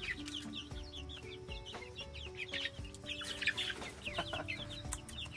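A flock of young pullets cheeping: many short, falling chirps from several birds at once, with no pause between them.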